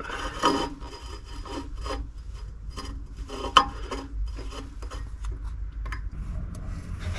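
Crimping pliers being squeezed shut on a new cable shoe on the van's broken starter-motor cable: irregular clicks and rubbing of metal tool and wire, with one sharper click about three and a half seconds in.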